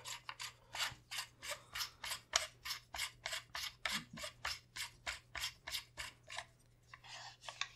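Steel barrel shroud of an ATI Bulldog shotgun being screwed on by hand, its threads rasping in short, even strokes about four times a second, which stop shortly before the end.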